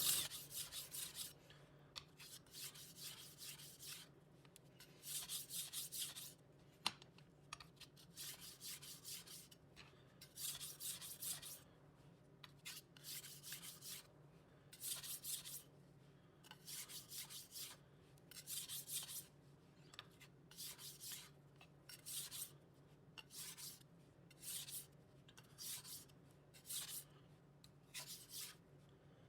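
Steel kitchen-knife blade scraping back and forth along a 400-grit whetstone in whole-edge strokes, each stroke a short gritty hiss. The strokes come in groups separated by short pauses as the blade is turned to the other side, with fewer strokes per group as the count goes down: the final edge-refining passes on the coarse stone.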